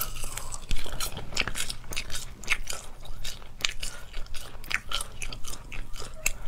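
A person biting and chewing a strip of latiao, a spicy Chinese wheat-gluten snack, close to a clip-on microphone: an irregular run of short, sharp mouth clicks and chewing noises.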